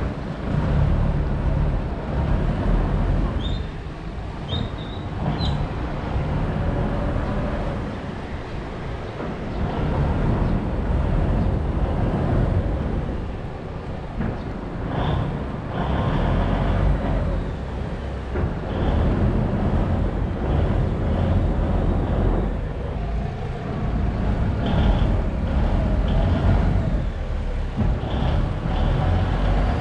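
Heavy diesel engine of a long canal boat running as the boat is manoeuvred backwards and turned, a loud, steady low rumble that swells and eases every few seconds, with a few short high squeaks.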